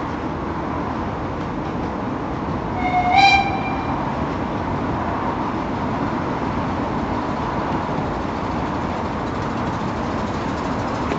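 A 15-inch gauge miniature railway locomotive gives one short toot about three seconds in, over the steady noise of the train running.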